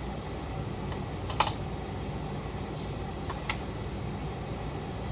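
A few sharp light clicks and taps of small parts and tools being handled while gasket sealant is spread on a chainsaw cylinder base, over a steady low hum. The loudest click comes about a second and a half in, and two more follow close together a couple of seconds later.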